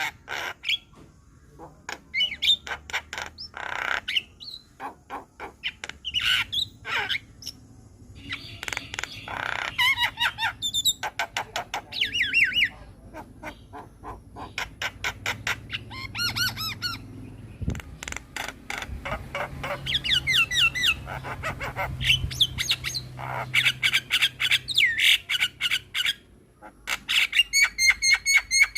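Javan myna (jalak kebo) singing a long, varied song: harsh squawks mixed with rapid rattling chatter and clear, pitch-bending whistled notes, in quick runs with short pauses between.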